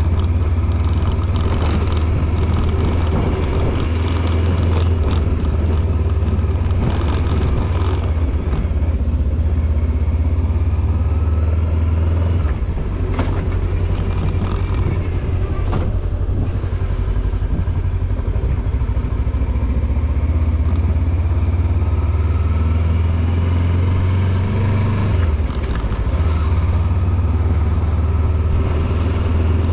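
Voge 525 DSX motorcycle's parallel-twin engine running under way, heard from the rider's seat as a steady low rumble. The rumble eases briefly twice, about twelve and twenty-five seconds in.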